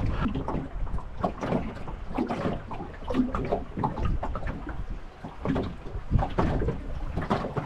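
Choppy water lapping and slapping against the aluminium hull of a small boat in short, irregular splashes and knocks.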